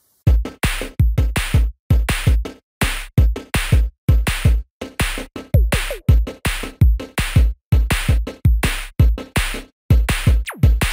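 Electronic background music with a steady, heavy drum-machine beat, starting suddenly out of silence just after the start.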